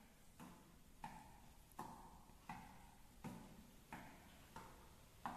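A juggling ball smacking into a hand with each catch, in an even rhythm of about one catch every 0.7 seconds, each with a short room echo.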